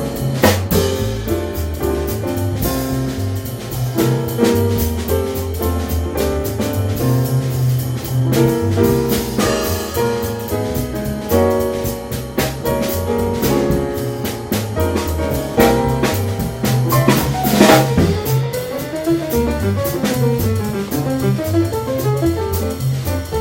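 Jazz trio of piano, drum kit and bass playing an upbeat piece: walking bass line under piano chords, with a cymbal crash about three-quarters of the way through and a run of piano notes climbing and falling near the end.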